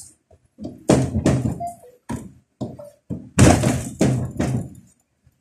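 Dull thumps and knocks of dough being pressed and worked by hand on a stainless steel work table, two louder bursts about a second in and a little past three seconds in.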